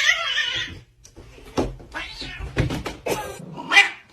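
A cat meowing: a wavering cry at the start and a short one near the end, with a few sharp knocks in between.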